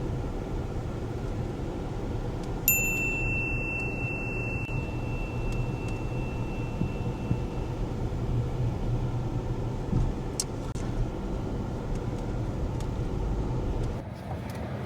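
Steady low rumble of a car driving, heard from inside the cabin. A single electronic ding sounds about three seconds in and rings out for several seconds.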